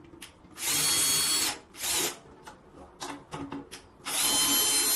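Electric drill driving a Gibraltar straight-head drill drum key to turn a drum's tension rods, in two runs of about a second each with a short blip between them, each with a steady high whine. This is quick tuning of a drum with a powered drum key.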